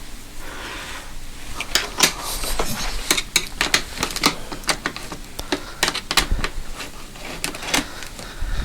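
Irregular metallic clicks and clinks of hand tools working the screws and bolts out of a motorcycle engine's side casing, a few sharp ticks a second, densest after the first second or so.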